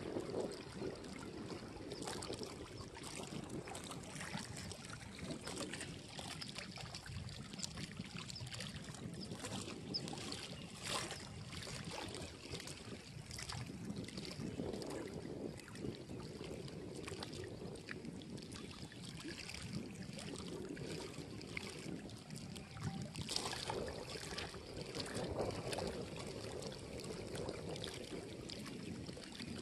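Wind on the microphone and small waves lapping against a rocky embankment, with a few light clicks from handling.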